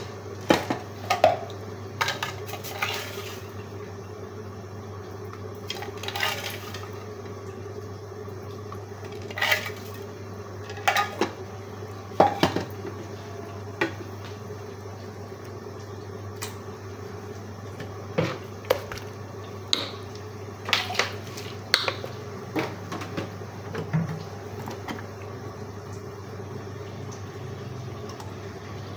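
Irregular clinks and knocks of steel pots and utensils while whole spices go into a steel pot of water, a couple of dozen sharp strikes spread unevenly, over a steady low hum.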